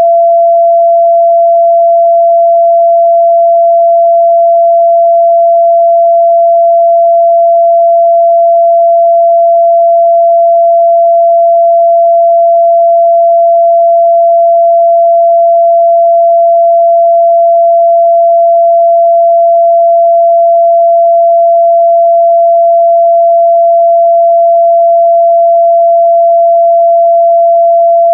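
A steady pure 678 Hz sine-wave test tone, loud and unchanging, with no harmonics.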